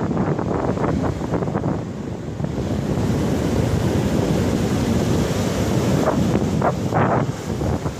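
Surf washing in over a sandy beach, with wind buffeting the microphone in a steady low rumble.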